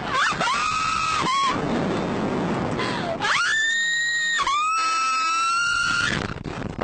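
Rider on a slingshot amusement ride screaming: three long, high screams, the last one held longest and slowly falling in pitch.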